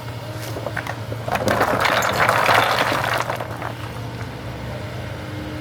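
Excavation machinery engine running steadily, with a loud burst of gritty scraping and clinking that lasts about two seconds, starting about one and a half seconds in.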